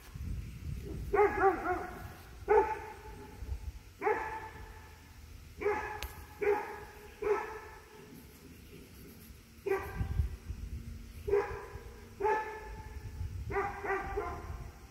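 A dog barking repeatedly, about a dozen short barks roughly a second apart, at a deer at the edge of the yard.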